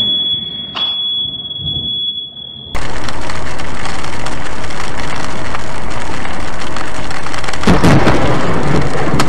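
Heavy rain and thunderstorm noise heard from inside a car, very loud and flattened as a dashcam records it. A louder crash of thunder from a close lightning strike starts near the end. Before a sudden cut about three seconds in, there is quieter rumbling with a steady high whine and a single click.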